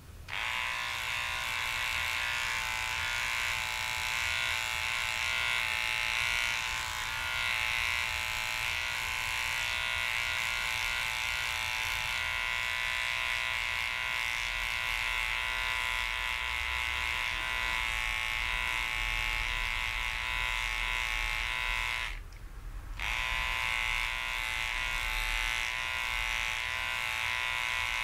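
Small electric pet clipper running with a steady high-pitched hum as it trims the fur on a dog's paw pads. It switches on at the start, cuts out for about a second some twenty-two seconds in, and starts again.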